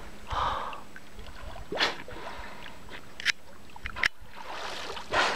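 Water sounds around a kayak: a few short splashing whooshes a couple of seconds apart, the loudest near the end, with a few faint clicks in between.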